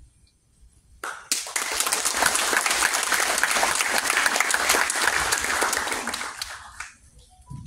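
Audience applauding. The applause starts about a second in, runs as dense, even clapping and dies away about a second before the end.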